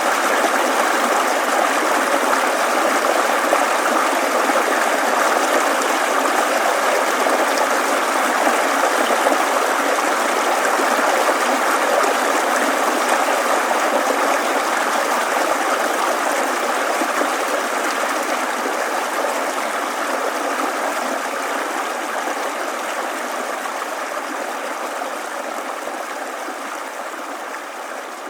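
A babbling mountain stream running over stones: a steady rush of water that fades out slowly over the second half.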